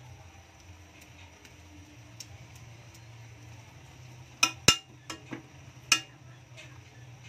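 Metal spoon stirring shrimp paste in a metal wok, scraping faintly, then clinking sharply against the pan about five times between four and a half and six seconds in. The paste is being cooked down until its liquid is gone.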